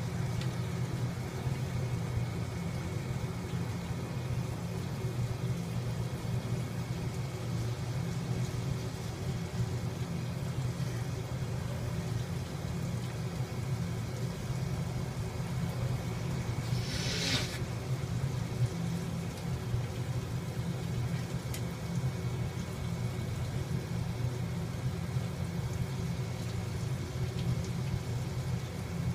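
Steady low background rumble, with one short hiss about seventeen seconds in.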